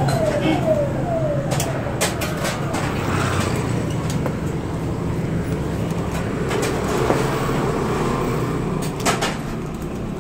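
Steady low background rumble and hum with a few sharp clicks, around two seconds in and again near the end.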